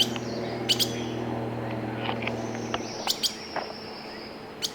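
Songbird chirping added as a sound effect: thin, high whistled calls that glide in pitch. Under it are a few sharp clicks and a steady low hum that stops about three seconds in.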